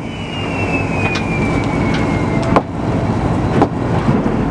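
Fishing boat's engine running steadily, with a few sharp knocks, about one a second.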